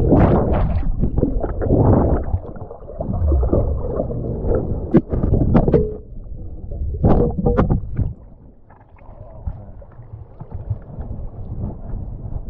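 Muffled underwater sloshing and gurgling of a snorkeler swimming, with a few sharp knocks midway. It turns quieter about eight seconds in.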